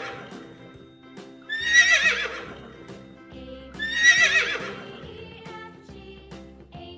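Horse neighing twice, about two seconds apart, each whinny about a second long with a quavering pitch, over background music.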